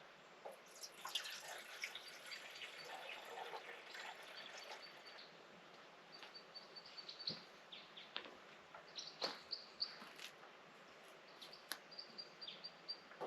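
A small bird chirping in short, quick runs of high notes, repeated every couple of seconds. Under it are soft rustles and clicks of gear being handled, busiest in the first few seconds.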